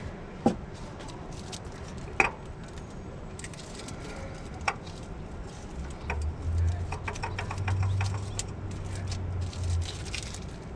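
Scattered sharp clicks and knocks of small metal parts and tools being handled, with a low steady hum from about six seconds in to near the end.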